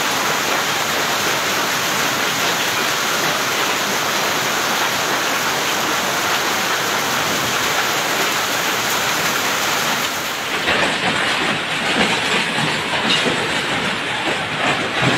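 Heavy tropical downpour pouring steadily onto pavement and parked scooters, a dense even roar. About ten seconds in it changes abruptly to a rougher, gusting roar of wind-driven rain with scattered sharp hits.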